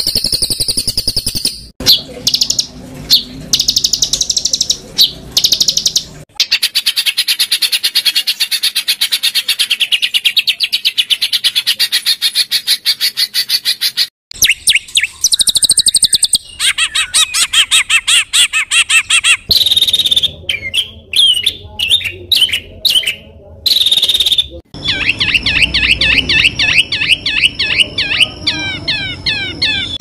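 Recorded songbirds singing in a spliced sequence that cuts abruptly between fast high-pitched trills, rapid runs of sharp repeated notes and chattering phrases. It is masteran tutor song of harsh 'tembakan' notes, played to teach competition songbirds.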